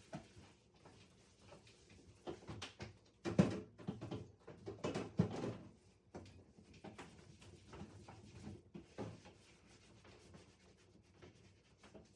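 Scrubbing and wiping inside a refrigerator, with irregular knocks and clatter from its shelves and bins; a louder run of rubbing strokes about three seconds in.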